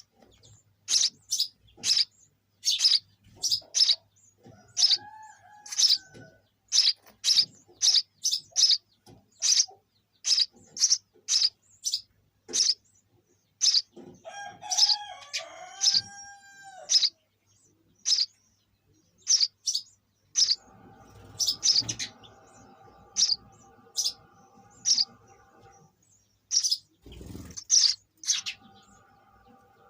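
Sparrows chirping: a steady run of short, loud, high chirps, one or two a second, with a few lower sliding calls mixed in.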